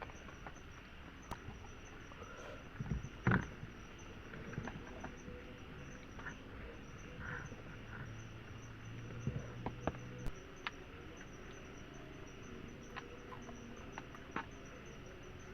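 Insects trilling steadily in the forest, with scattered small clicks and knocks of handling; the loudest is a knock about three seconds in.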